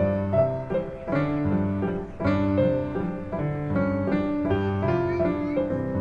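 Background instrumental music, a keyboard-like melody of notes changing every fraction of a second over low held notes.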